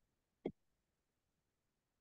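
Near silence, with one short click about half a second in.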